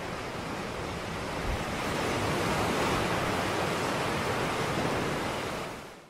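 Sea waves washing onto a sandy beach, a steady surf hiss that swells a little after a couple of seconds and fades out near the end.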